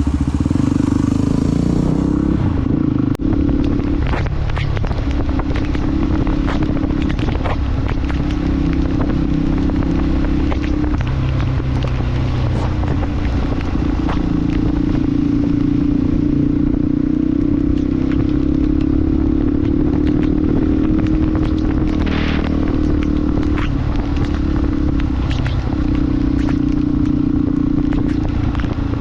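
Motorcycle engine running steadily under way, with many short clicks and knocks over it.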